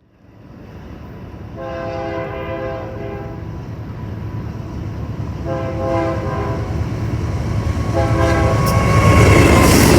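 Diesel freight locomotive horn of a Union Pacific AC44CWCTE sounding three blasts, a long one, a shorter one, then a short one, the start of a grade-crossing signal. Beneath it the locomotive's diesel rumble and wheel noise grow steadily louder as the train approaches.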